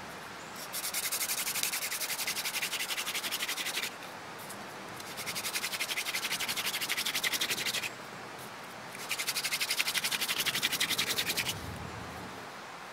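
Hand-drill friction fire: a Canada goldenrod spindle spun between the palms, its tip grinding in the pilot hole of a wooden hearth board with a fast pulsing, dry scratch. Three bouts, each a couple of seconds long, with short pauses between as the hands go back up the spindle; the pilot hole and spindle tip are being carbonized, and the board is starting to smoke.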